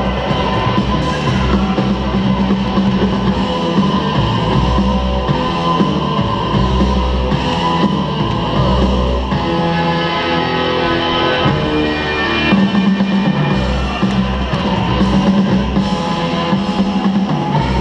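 Loud music with electric guitar and a drum-kit beat, played for the dancers.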